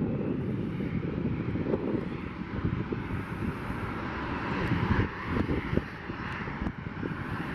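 Boeing 737 jet engines as a steady rushing roar that swells a little around the middle, under gusty wind buffeting the microphone.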